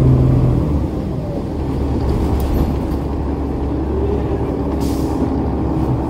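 A city bus's Cummins ISL9 diesel engine running steadily. Its strong low note drops away about half a second in, and a short hiss of air comes about five seconds in.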